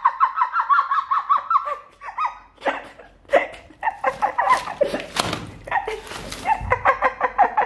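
High-pitched giggling laughter in quick repeated bursts, breaking off briefly about two seconds in, with a few knocks and rustles about four to six seconds in.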